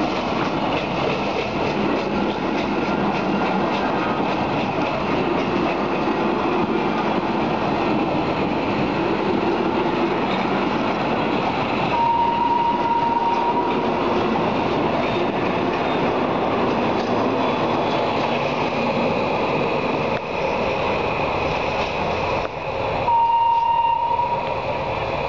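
A vintage passenger train of wooden-bodied carriages rolling past close by, its wheels clattering over the rail joints. A brief, steady high whistle note sounds twice, once midway and once near the end.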